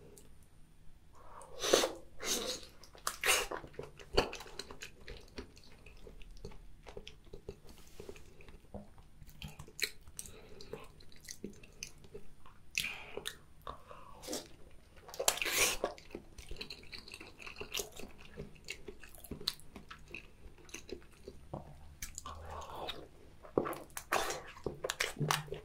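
Close-miked eating sounds around a thick slab of raw salmon sashimi: scattered soft wet smacks and mouth clicks, with a bite into the fish and chewing near the end.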